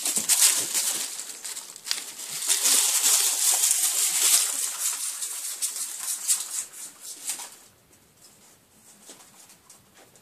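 Dry autumn leaves rustling and crackling in quick, irregular bursts as a ferret scampers and tumbles through them, dying away about three-quarters of the way through.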